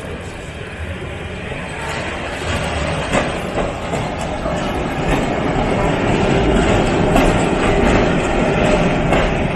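Vintage Milan Class 1500 tram running past on street track, getting louder as it draws close, with a few clicks and knocks from its wheels on the rails.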